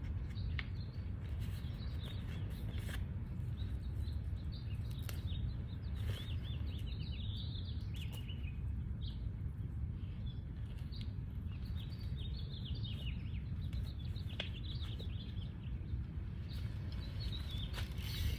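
Small birds chirping and singing over a steady low rumble.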